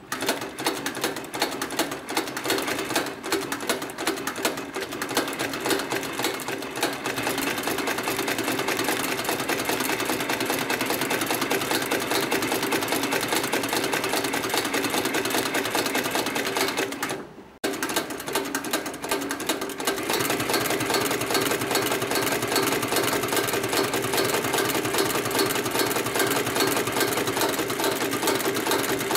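HighTex 9204ZZ heavy-duty walking-foot zigzag sewing machine stitching at a steady speed, a rapid even clatter, first through thick carpet edging and then through layered webbing straps. The stitching breaks off briefly a little past halfway and then resumes.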